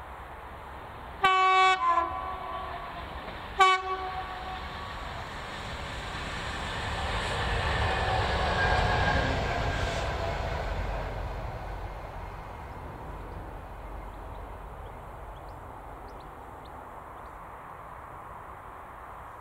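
Class 66 diesel locomotive sounding its horn twice, a longer blast and then a short one, then the train running past, its rumble rising to a peak about nine seconds in and fading away.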